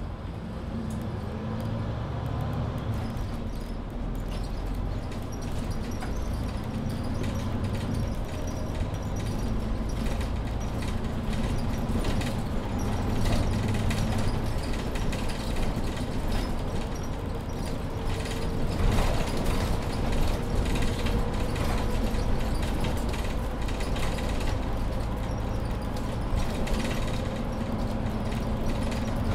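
Inside a Mercedes-Benz Citaro C2 Ü Hybrid city bus under way: the engine and Voith automatic transmission running steadily over road noise, with many small interior rattles and clicks. A faint whine rises slowly in pitch through the second half.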